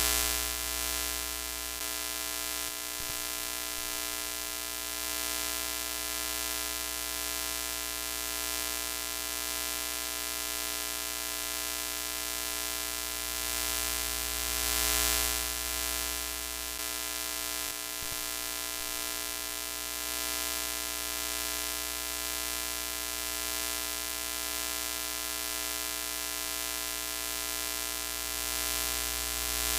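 Broken-TV static sound effect: a steady hiss of noise with an electrical buzz running under it, swelling slightly about halfway through.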